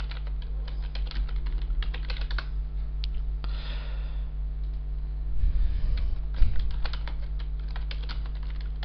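Typing on a computer keyboard: runs of quick key clicks, with a few heavier thuds a little past the middle. A steady electrical hum runs underneath.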